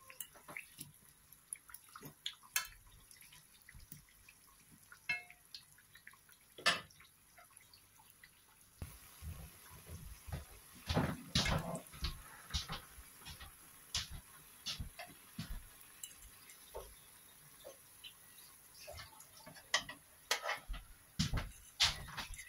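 Oil sizzling and popping around vegetable pitha pastries deep-frying in a pan, with clicks and scrapes of a fork turning them against the metal pan. The sizzle thickens about nine seconds in, with bursts of louder clatter soon after and again near the end.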